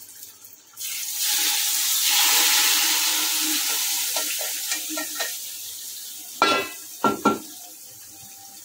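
Hot olive oil with roasted almonds poured from a frying pan into a pot of curry, hissing in a sudden loud sizzle about a second in that slowly dies away. A few sharp metal clinks of utensils come near the end.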